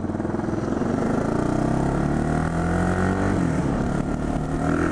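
Single-cylinder engine of a 2012 KTM 690 Duke motorcycle pulling away and accelerating, its pitch climbing. About three and a half seconds in the pitch drops as it shifts up a gear, then it climbs again.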